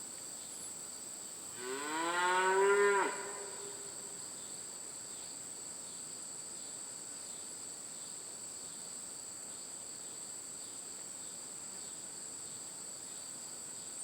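A cow moos once, a single call of about a second and a half that rises in pitch and drops off sharply at the end.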